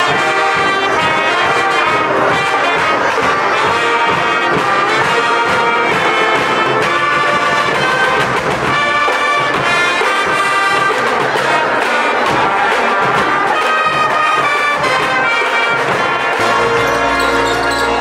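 A high school pep band playing live in a gym: trumpets, trombones and saxophones carry a tune over marching snare and bass drums.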